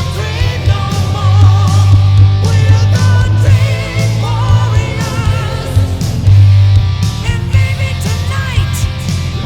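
Loud rock music: electric guitar, bass and drums, with a wavering vocal or lead line above them.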